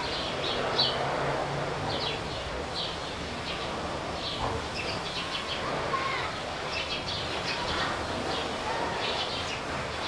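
House sparrows chirping, many short chirps scattered throughout, over steady background noise.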